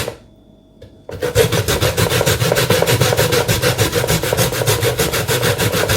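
Cassava root being grated by hand on the fine side of a metal grater: quick, even rasping strokes, about six or seven a second. The strokes pause for about a second at the start, then go on steadily.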